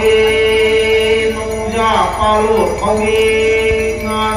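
A voice singing a chant in long held notes that bend between pitches, over music with jingling bells.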